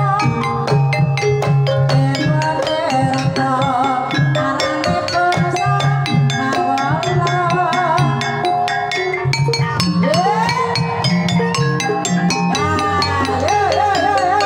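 Javanese gamelan playing a Banyumasan tayub piece: bonang kettle gongs struck in quick, dense runs, with a sinden's voice wavering above and rising in long glides about ten and thirteen seconds in.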